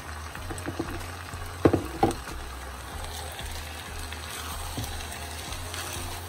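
Ground beef and chopped fruit sizzling as they fry in a clay cazuela while being stirred with a spatula, with two sharp knocks about two seconds in.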